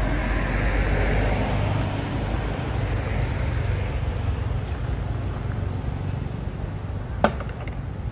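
A road vehicle passing and fading away, a noisy hiss over a steady low rumble that slowly dies down, with one short sharp click about seven seconds in.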